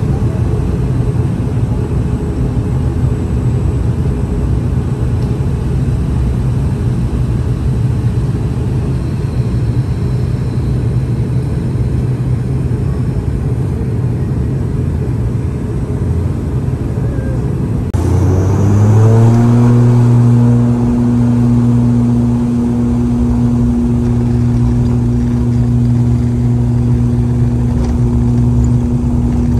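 ATR 42-600's twin Pratt & Whitney PW127M turboprop engines and propellers heard from inside the cabin, droning steadily at taxi power. About two-thirds of the way through they spool up quickly to takeoff power. The sound rises into a louder, steady propeller hum as the takeoff roll begins.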